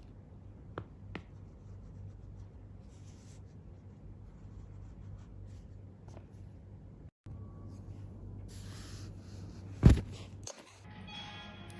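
Quiet small-room sound with a steady low hum, two faint clicks about a second in, and one sharp knock about ten seconds in.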